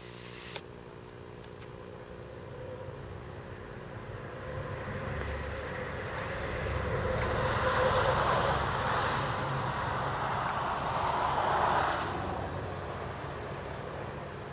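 Tandem paramotor engine and propeller running at takeoff power as it climbs away. It grows louder over the first several seconds, peaks between about eight and twelve seconds in, then drops off fairly suddenly.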